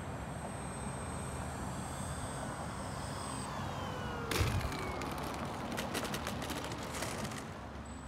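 Electric RC warbird's motor and propeller whining faintly, the whine sliding down in pitch, over a steady outdoor hiss. A knock comes about four seconds in, followed by a run of sharp clicks.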